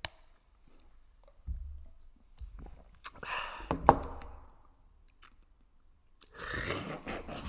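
Close mouth sounds of people sipping and swallowing soda from cups, with scattered small clicks; two hissy slurping stretches, one about three seconds in with a sharp click near its end, the other near the end.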